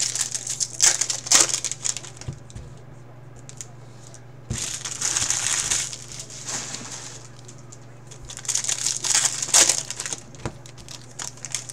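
Foil trading-card pack wrappers from 2023 Bowman Chrome baseball hobby packs crinkling as hands handle and tear them open, in three bouts: at the start, around the middle and near the end. A low steady hum runs underneath.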